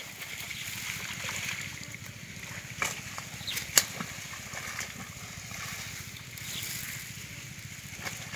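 Pond water sloshing gently against a net enclosure, with a couple of short sharp splashes about three and four seconds in, the louder one near four seconds, from fish jumping inside the net.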